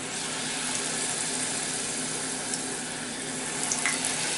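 Batter-coated mushroom pieces deep-frying in hot oil: a steady sizzling hiss with a few faint crackles.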